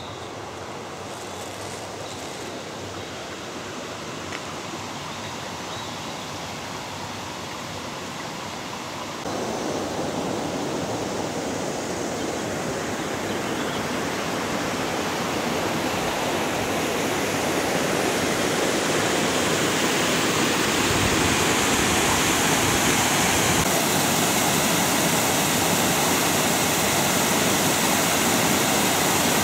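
Water rushing over a stone river weir, a steady roar of falling water that grows louder throughout, with a sudden step up about nine seconds in.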